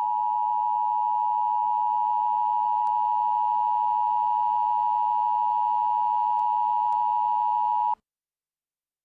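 Emergency Alert System attention signal: the steady two-tone EAS alarm, held for about eight seconds and then cutting off abruptly.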